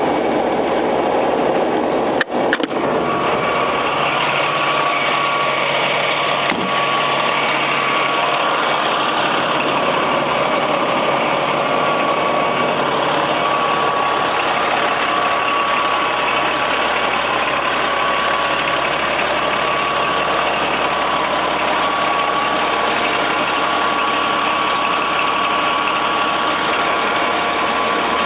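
Fire engine's engine running steadily, an even unchanging drone, with a couple of brief clicks about two seconds in.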